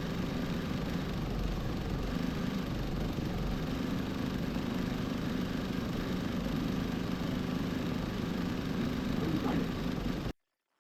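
Industrial embroidery machine running steadily as it stitches, a continuous mechanical hum. The sound cuts off suddenly near the end.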